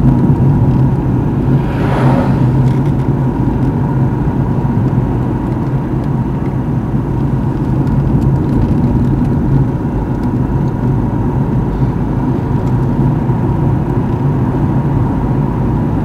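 Steady engine drone and tyre noise inside a moving car's cabin as it drives a winding road. There is a brief hiss about two seconds in.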